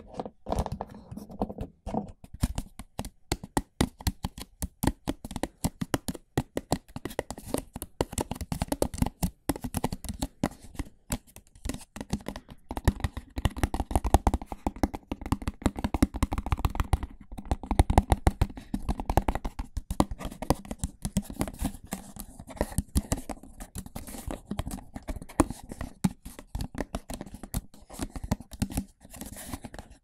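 Fingers scratching and rubbing right on a foam microphone windscreen, then handling a clear plastic tub over the mic: a dense, unbroken run of fast crackles and scratches.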